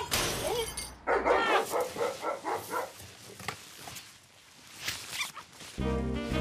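A small dog yipping and whimpering, about six short calls in quick succession, followed by a few faint rustles; music comes in near the end.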